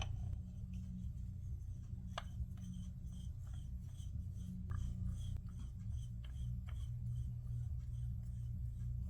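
Light handling sounds as a moderator is fitted to an air rifle: scattered sharp clicks and some rubbing, over a steady low hum.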